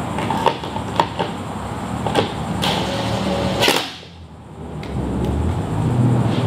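A climbing hold being fitted to the wall: several sharp knocks and clicks in the first few seconds over a steady low hum. The sound drops away briefly about four seconds in, then the hum returns.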